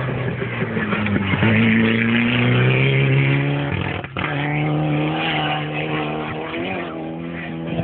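Rally car engine revving hard as it accelerates away along a dirt stage, its pitch climbing for a few seconds, then a short break about four seconds in as it shifts gear, and running high again after.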